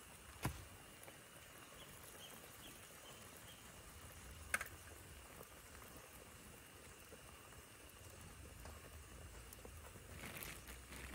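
Quiet outdoor ambience with two sharp clicks of cookware being handled at a portable camping stove, about half a second in and about four and a half seconds in, and a short row of faint chirps between them. Near the end a brief scuffle of footsteps on sand as a second person crouches down.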